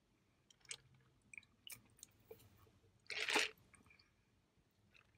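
Close-miked chewing of a crispy-breaded chicken sandwich: small wet clicks and squishes of the mouth, with one louder noisy burst about three seconds in.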